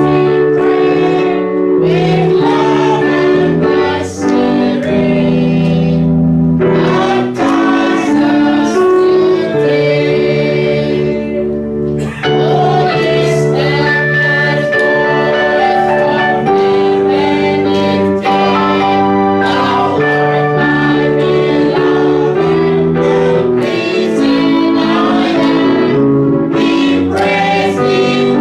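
A group of voices singing a hymn with instrumental accompaniment, in long held notes that move together from chord to chord.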